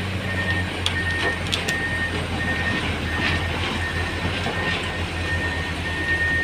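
Diesel engines of dump trucks and a tracked excavator running steadily, with a high beep repeating about every 0.7 seconds, like a vehicle's reversing alarm. A few sharp knocks sound about a second in.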